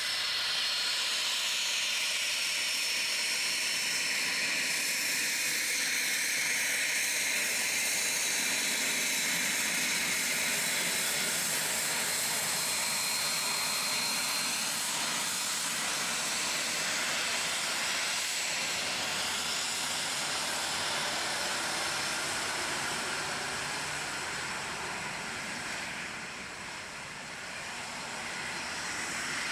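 Boeing 777-300ER's GE90 jet engines at taxi power, a steady hiss with a high whine over it, as the airliner taxis and lines up. The sound dips briefly near the end, then builds again.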